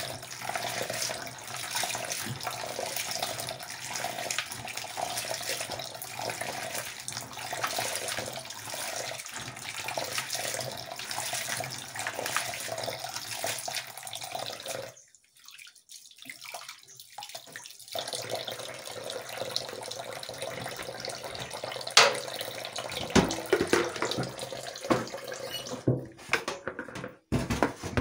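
Kitchen tap running into a pot of beans while hands swish and rub them in the water. Just after halfway the sound drops out for a few seconds. When it returns there are several sharp knocks and some clatter among the water noise, the loudest a little past two-thirds through.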